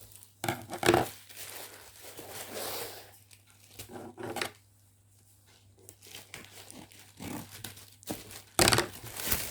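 Parcel packaging being handled and torn open: irregular crinkling and tearing rustles, with the loudest crackles about a second in and again near the end.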